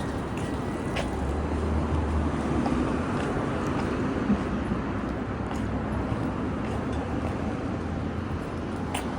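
Steady vehicle noise: a continuous low rumble with a few faint clicks.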